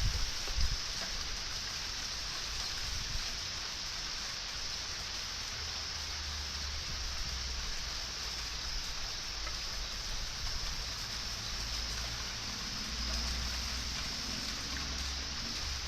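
Steady rain falling, an even hiss, with a low rumble underneath at times.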